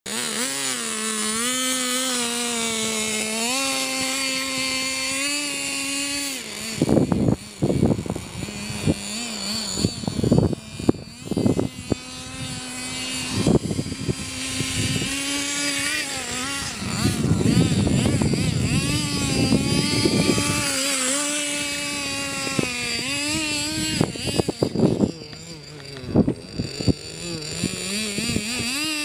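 Radio-controlled truck's motor running, its pitch stepping up and down with the throttle, broken by repeated knocks and rattles.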